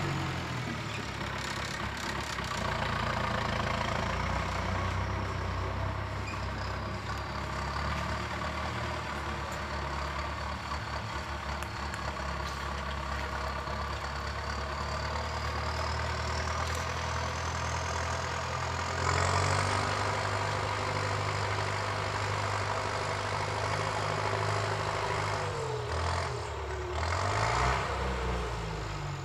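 Diesel engine of a Zetor Super 50 Turbo tractor running steadily under load while pulling a plough. The engine note dips and rises about two-thirds of the way in and again near the end. A faint high whistle climbs slowly through the middle.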